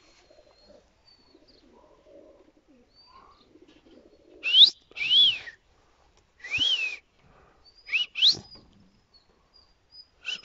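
Five loud, short whistles: quick upward sweeps and rising-and-falling arches, coming between about four and nine seconds in, over a faint low murmur.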